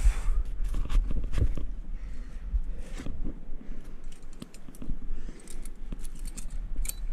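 Trad climbing rack of cams and carabiners clinking on the harness, with hands and rock shoes scraping the rock of a crack during a lead climb: a scattered string of small clicks and rustles over a low rumble.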